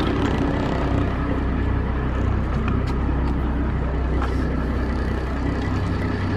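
Volvo 50 hp inboard boat engine idling steadily, warming up after a cold start. A few faint clicks ride over it.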